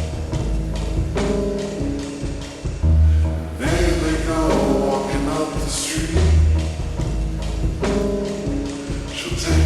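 Slowed-down, reverb-heavy indie pop song: deep bass notes return about every three seconds under a steady groove, with a gliding melodic line coming in about four seconds in and again near the end.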